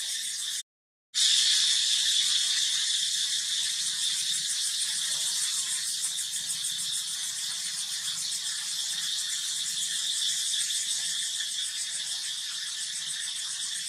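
A steady, high-pitched insect chorus buzzing and pulsing rapidly, broken by a moment of dead silence just under a second in.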